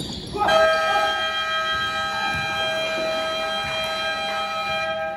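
Basketball scoreboard horn sounding one long, steady blast of nearly five seconds that cuts off sharply, the buzzer that ends the game.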